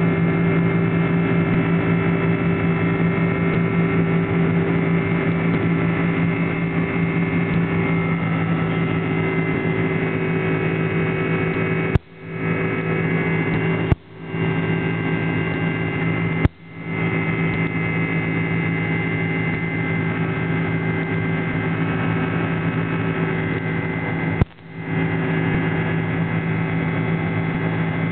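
Steady cabin drone of an Airbus A300's twin General Electric CF6-80C2 turbofans at climb power, a steady hum with several fixed tones. Four brief clicks, each followed by a short dip in level, break it about halfway through and again near the end.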